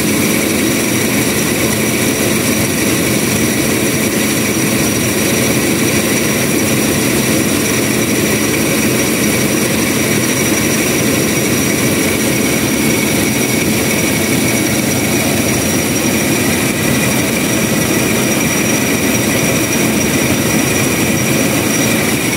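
Toyota Revo engine idling with the air conditioning on, a steady high-pitched squeak running over the engine sound. The squeak comes with the aircon and goes away when it is switched off.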